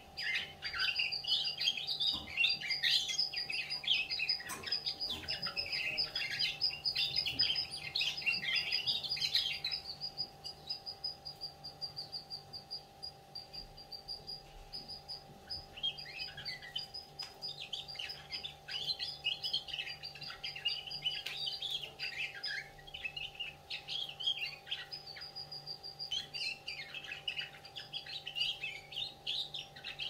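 A young canary singing its early, still-forming song in warbling phrases over a steady run of rapid high repeated notes. The warbling stops about ten seconds in and starts again some six seconds later, with a shorter break near the end. A faint steady hum lies underneath.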